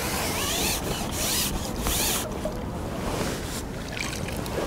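Fishing reel being wound in short bursts while a hooked fish is drawn in: a rasping hiss with a faint wavering whine, in three or four spurts in the first two seconds or so.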